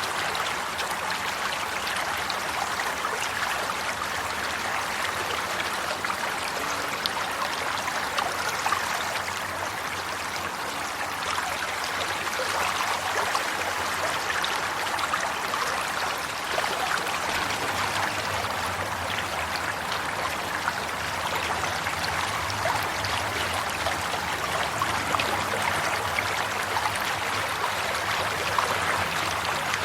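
Running water flowing steadily, with an even rushing hiss and constant fine trickling and splashing ticks.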